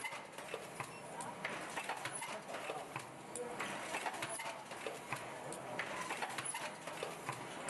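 Automatic surgical-mask production machine running: a fast, uneven clatter of clicks and knocks from its moving parts.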